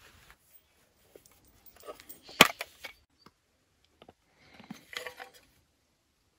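Short animal sounds in two brief clusters, with a single sharp click about two and a half seconds in.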